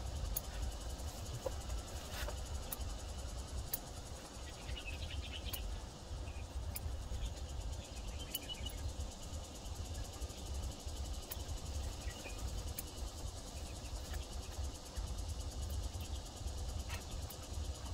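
Outdoor garden ambience: a steady low rumble under insects buzzing, with a few brief chirps about five and eight seconds in.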